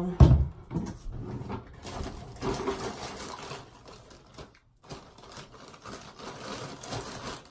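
Handling noise from a plastic bottle and other items being packed into a bag: irregular rustling and light knocks, with a sharp thump just after the start.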